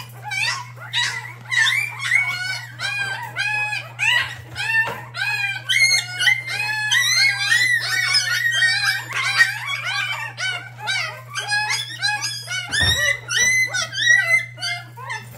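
A litter of week-old puppies crying and squealing without pause, many short rising-and-falling high-pitched calls overlapping several times a second.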